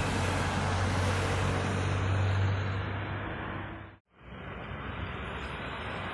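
A heavy curtain-sided lorry passing close by: a low engine drone with tyre and road noise that peaks and then fades as it goes. About four seconds in the sound cuts out for a moment, then steady street traffic noise continues.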